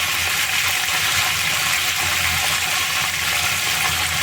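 Mint leaves and whole biryani spices sizzling steadily in hot oil and ghee in a pot.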